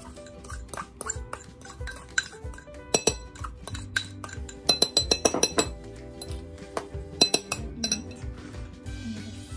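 A mixing utensil clinking against a mixing bowl in quick runs of strokes as a softened batter mixture is beaten by hand until fluffy. Background music plays throughout.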